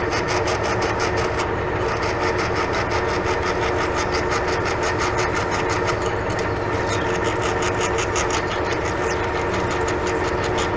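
Metal lathe running steadily while a twist drill in the tailstock chuck bores into a spinning steel bar. There is a steady machine whine with a fast, even pulsing on top.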